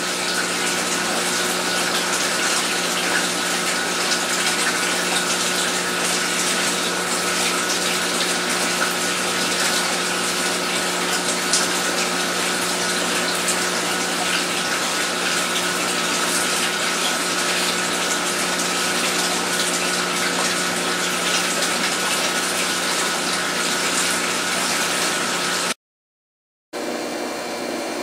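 Aquarium water pump and filter running: a steady rush of moving water over a constant hum. It drops out for about a second near the end, then a similar steady hum resumes.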